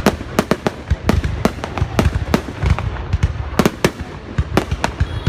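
Fireworks going off: many sharp bangs at irregular intervals, several a second, over a continuous low rumble.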